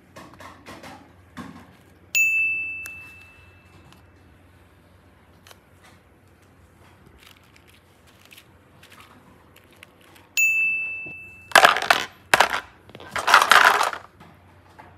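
A bright, bell-like ding sound effect plays twice, about eight seconds apart, each starting suddenly and fading over about a second. Near the end come two loud crunching, crackling noises.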